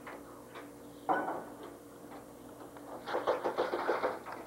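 Serving utensils and dishes knocking and clattering: one sharp knock about a second in, then a quick run of clatters near the end.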